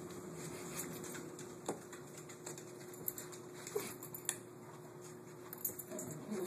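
A puppy and an older dog scampering and playing on carpet: light paw patter with scattered small knocks, and a short yip about four seconds in.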